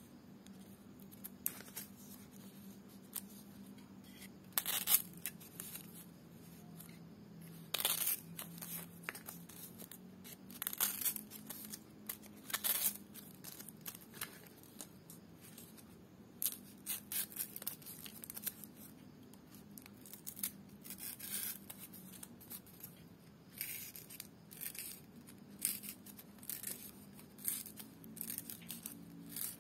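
Small scissors snipping stiff dried lontar palm leaf (ental), a string of short, crisp, irregular cuts mixed with the rustle of the leaf strips being handled and folded. A faint steady low hum sits underneath.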